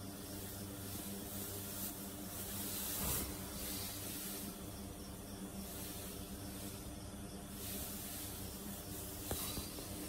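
Arabian mare's heavy breathing in labour: long hissing breaths every second or two, over a steady low hum. A single sharp click about nine seconds in.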